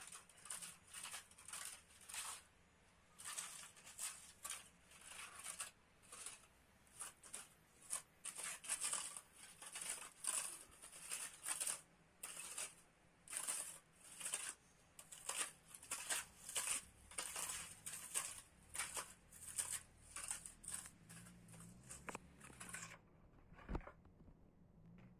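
Hand trowel scraping and smoothing wet sand-and-cement mortar over a floor, in quick repeated strokes of about one to two a second that stop near the end.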